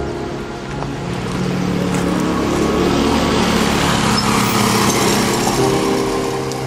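Background music of sustained synth chords, with a broad rushing noise that swells in the middle and fades again.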